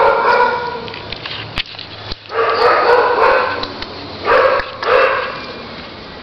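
Young puppy barking and yipping in play, in four bursts, the second about a second and a half long.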